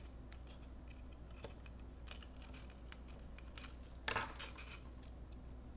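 Scissors snipping pieces of crumpled aluminium foil, with light foil crinkling and small scattered clicks; a louder cluster of clicks comes about four seconds in.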